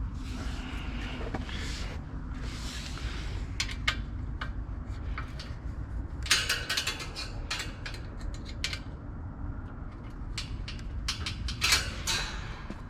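Hands working on an e-bike's parts: scattered metal clicks, light rattles and short scraping rustles, in small clusters, over a steady low hum.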